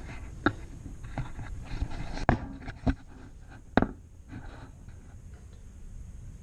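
Several sharp knocks and some scraping as the sheet-metal rocker panel is handled and test-fitted against the body, the loudest knocks a little over two seconds in and near four seconds in.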